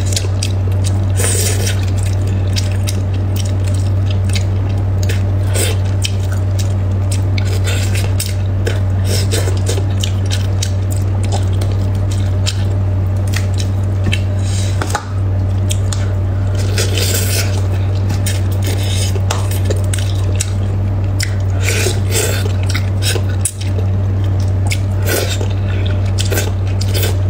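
Eating sounds: chewing and wet, squishy mouth noises, with metal chopsticks clicking now and then against the plate and a plastic bowl. A steady low hum runs underneath.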